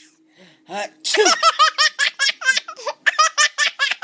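Baby laughing hard in a run of quick, high-pitched chuckles, about five or six a second, starting about a second in, with a brief break near three seconds before the chuckling resumes.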